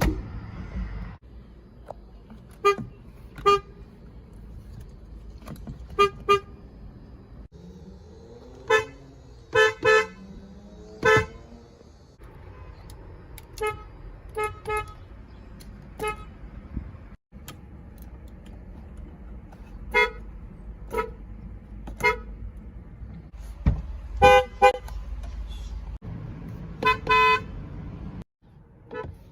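Car horns tooting in short blasts, single and in quick pairs, about twenty in all, with the background changing abruptly between clips.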